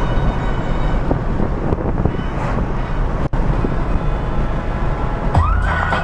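Steady rumble of engine and road noise inside a moving car's cabin. Near the end, music with a held high note starts over it.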